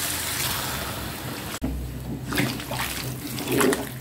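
Water poured into a hot wok of sautéed spice paste, tofu and potato, a steady rushing hiss that cuts off sharply about a second and a half in. After that, a spatula stirring the now-watery mixture with light scrapes and knocks.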